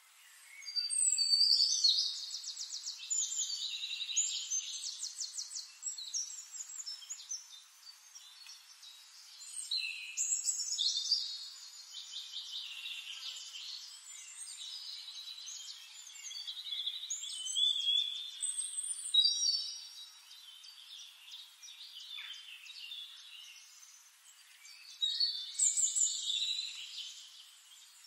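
Songbirds chirping and trilling, high-pitched, in about four bouts of a few seconds each with quieter stretches between.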